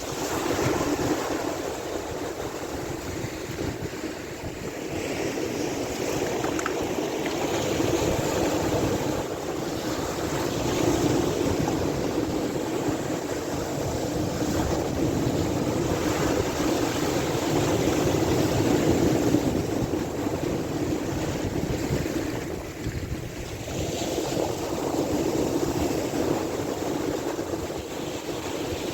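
Sea waves and wind: a continuous rushing of water that swells and eases over several seconds, with a dip a little before the last quarter.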